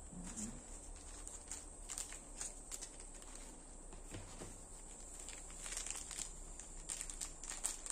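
Crinkling and rustling of a clear plastic packaging sleeve as a folding knife is handled inside it. It comes in scattered short rustles that grow busier near the end.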